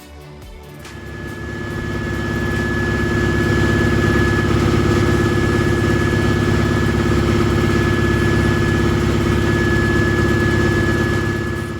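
Natural gas compressor unit's engine running steadily, with a thin steady whine above the engine note. The sound swells in over the first couple of seconds and fades away near the end.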